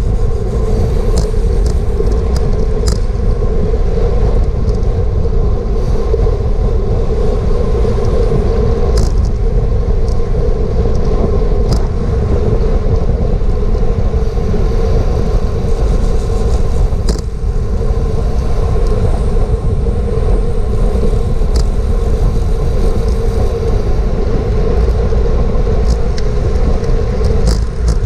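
Steady, loud wind rush on the microphone of a GoPro riding on a road racing bicycle at speed, with a few brief clicks.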